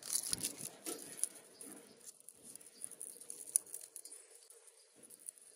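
Light clicks, taps and scratching of small metal parts and wires from a burnt-out angle grinder being handled with pliers on a steel surface, busiest in the first second with a sharper click about three and a half seconds in.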